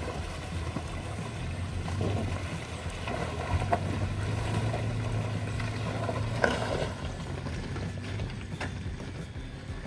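Off-road truck driving slowly along a dirt trail: a steady low engine drone with a few sharp knocks and rattles, the loudest about six and a half seconds in.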